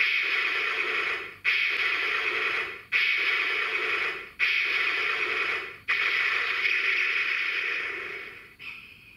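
Electronic sound effect from the CSM Den-O Belt toy: the Climax Form finisher sound, a rushing, hissing surge repeated five times about one and a half seconds apart, each starting suddenly. The last surge runs longer and fades out near the end.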